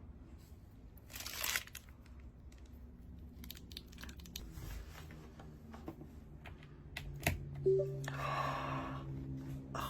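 Unboxing a mechanical keyboard and its accessories: scattered clicks and taps of parts being handled, with brief rustles of packaging about a second in and again near the end.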